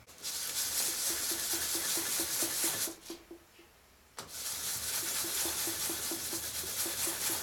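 A small ring-shaped part being rubbed by hand on sandpaper: a steady gritty scraping with a fast, even back-and-forth rhythm. It comes in two bouts, with a pause of about a second between them.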